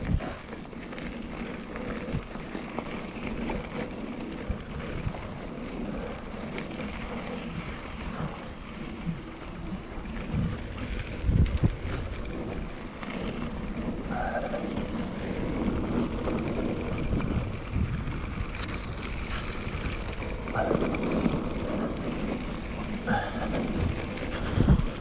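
KTM Ultra Fire 27.5-inch mountain bike rolling along a gravel forest road: steady tyre noise on gravel with wind on the microphone, and a few sharp knocks from bumps.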